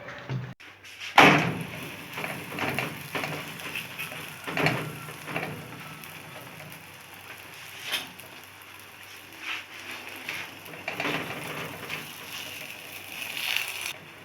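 Kitchen handling noises: a handful of sharp knocks and clatters, the loudest about a second in, over a faint steady crackling hiss.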